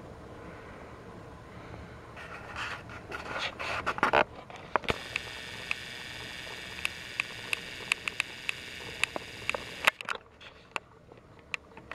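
Scraping and rustling of plastic toy trains being handled, then a small motor whirring steadily for about five seconds, with scattered light clicks.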